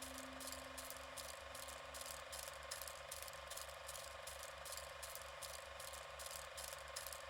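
Faint, steady mechanical-sounding ticking, about four ticks a second, with a low pulse keeping the same beat.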